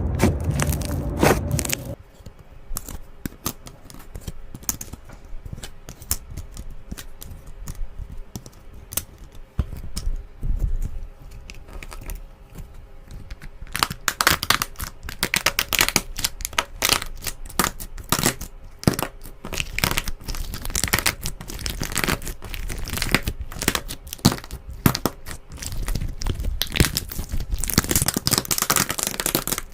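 Slime being squeezed and stretched by hand, making a run of crackling, popping clicks. The clicks are sparse at first and thicken into dense crackling from about halfway on. A louder, deeper sound in the first two seconds cuts off suddenly.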